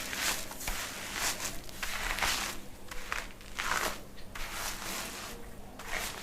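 Fingers scratching and scrubbing hair and scalp lathered with shampoo, a crackling rasp in repeated rough strokes about one or two a second.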